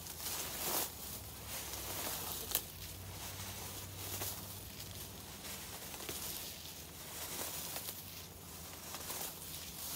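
Dry dead grass and leaves rustling and crackling as gloved hands pull them up, with irregular small clicks and one sharper click about two and a half seconds in.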